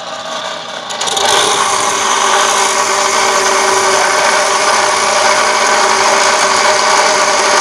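Homemade abrasive cut-off saw, its disc driven by an external electric motor, cutting through a metal rod: a steady grinding hiss over the whine of the spinning disc. The cut bites in about a second in and gets louder, then holds steady.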